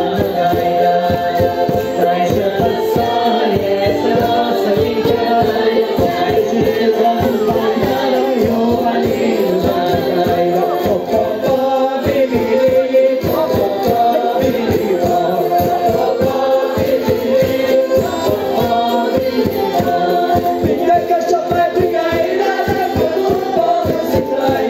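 Madeiran folk music: a group singing together over a brisk, steady percussion beat.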